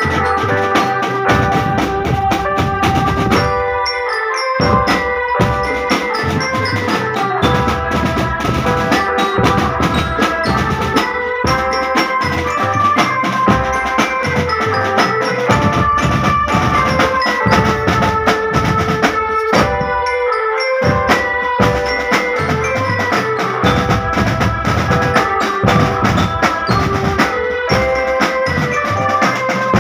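Marching drum band playing: snare drums and large bass drums beating a steady, driving rhythm, with a melody carried over them on pitched instruments.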